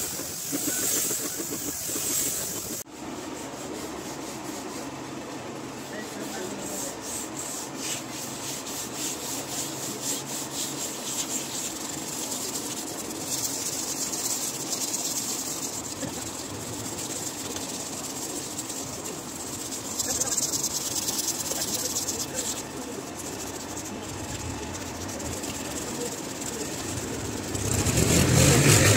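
Hands rubbing the polished surface of a carved wooden door with folded pads, a steady scratchy rubbing made up of quick back-and-forth strokes. A louder hiss fills the first few seconds, and a louder, deeper rumble swells near the end.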